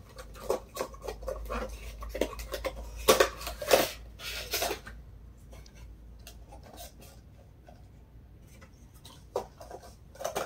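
Cardboard and plastic mouthguard packaging being opened and handled: a quick run of crinkles, rustles and sharp clicks, loudest about three to four seconds in, then quieter handling with a few more clicks near the end.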